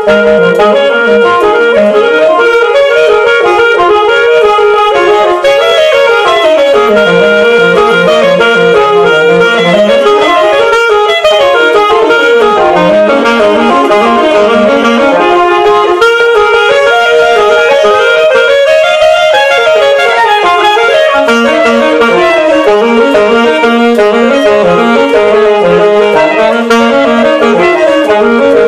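Two alto saxophones playing a fast duet: one keeps sounding a steady middle note while the other plays quick runs that dip low and climb back up several times.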